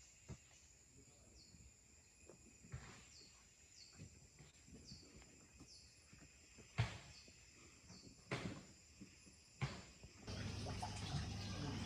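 Quiet forest ambience: a thin steady high insect whine with short, high falling chirps repeating every half second to a second, and a few sharp knocks. About ten seconds in, a louder steady rushing noise with a low hum takes over.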